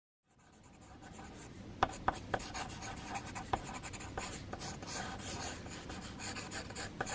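Pencil sketching on paper: scratchy strokes that fade in just after the start, with a few sharper ticks of the lead on the page about two and three and a half seconds in.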